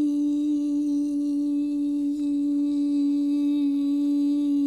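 A woman's unaccompanied singing voice holding one long, steady note: the final note of a song.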